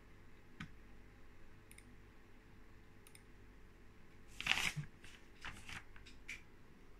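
Faint scattered clicks, with a brief louder rustle about halfway through, from handling of the recording phone as it is moved.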